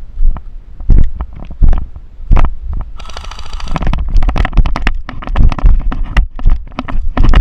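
Footsteps of the player wearing the camera, steady heavy thumps about every 0.7 s with gear rattling, quickening about halfway through; a brief rustling hiss about 3 s in.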